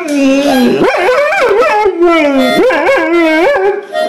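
A dog howling along to a harmonica: long wavering howls that slide up and down in pitch, with short steady harmonica notes between them, one about two and a half seconds in and another near the end.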